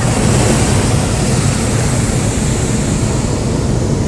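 Hot air balloon's propane burner firing, a loud steady rushing blast.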